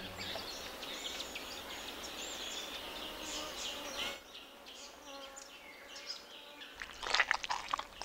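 Quiet outdoor nature ambience of small birds chirping and insects, with a few louder, sharp high chirps about seven seconds in.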